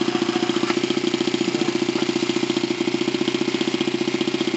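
Small four-stroke petrol engine of a gauge 1 model locomotive running steadily, with an even, rapid firing beat.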